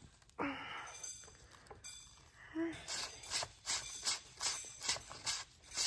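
Metal barrel of a cordless grease gun being unscrewed by hand, with metal-on-metal scraping and clicking. From about halfway through, the clicks come in a regular run, about three a second.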